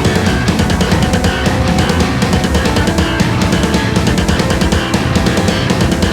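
Heavy metal music: distorted guitars over fast, driving drums.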